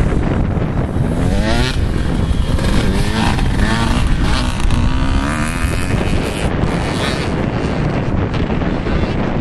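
Motocross dirt bike engine revving up through the gears several times, its pitch rising again and again, heard over heavy wind buffeting the microphone.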